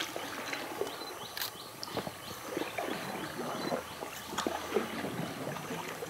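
River water lapping and splashing around a raft drifting downstream, with scattered small knocks and splashes.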